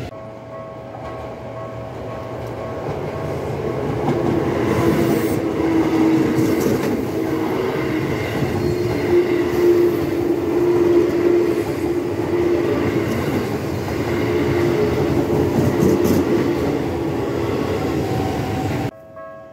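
An electric commuter train passing over a level crossing: wheels rumbling and clattering over the rail joints, with a steady whine through most of the pass. The crossing's warning bell rings under it in the first few seconds, and the sound drops off abruptly near the end.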